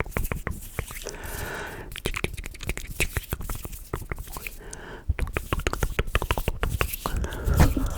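Close-microphone ASMR mouth sounds: quick wet clicks and smacks in irregular runs, with a few soft breaths between them.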